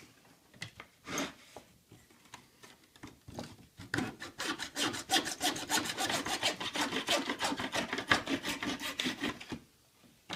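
Small hacksaw cutting through Kydex sheet, separating the two halves of a molded sheath. A few light scrapes come first, then quick, even back-and-forth strokes start about four seconds in and stop shortly before the end.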